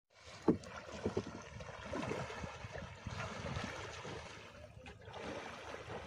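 Water sloshing and splashing around a person wading into a river, in irregular surges, with the sharpest splash about half a second in.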